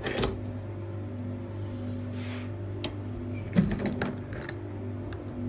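Sharp metallic clicks and clinks from a just-picked steel ball-type shutter lock and its picking tools being handled: a couple near the start, one just before the middle, and a short cluster a little later, over a steady low hum.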